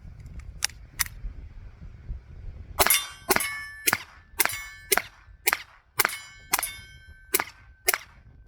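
Taurus TX22 .22 LR pistol firing CCI Mini-Mag rounds in steady rapid fire, about ten shots at roughly two a second, each followed by a brief ringing tone. Two light clicks come before the first shot.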